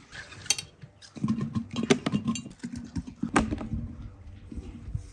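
Apple slices dropped by hand into large glass jars, knocking and clinking against the glass, with a few sharper knocks among them.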